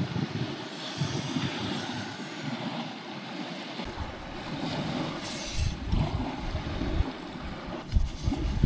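Wind buffeting the microphone over waves washing on a rocky shore, gusty from about halfway, with a brief high hiss a little after five seconds.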